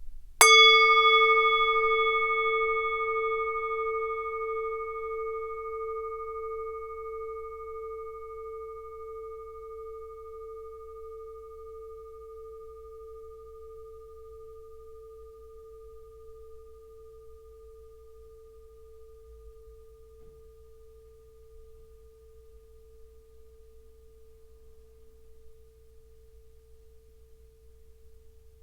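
Tibetan singing bowl struck once about half a second in, then left to ring: a low steady hum with higher overtones that die away within a few seconds, the hum slowly fading with a gentle regular wavering.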